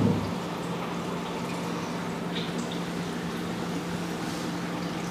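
Steady machine hum with faint trickling and dripping of liquid in a cappings melter, and a short knock right at the start.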